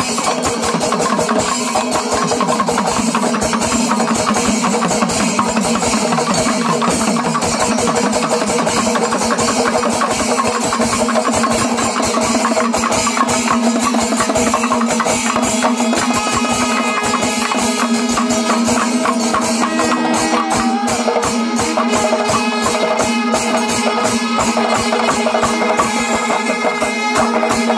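Panchavadyam temple ensemble in its fifth kaalam: timila and maddalam drums and ilathalam cymbals in fast, dense strokes under held blasts of kombu horns.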